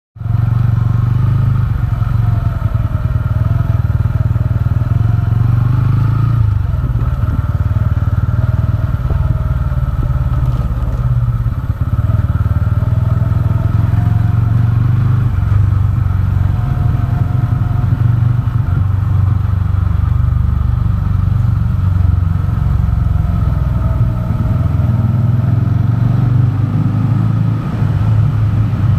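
TVS Ronin's single-cylinder engine running with a steady, deep rumble that sets in suddenly at the start.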